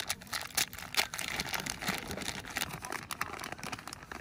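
Crinkling and rustling of material being handled, with many irregular sharp clicks and crackles, growing fainter near the end.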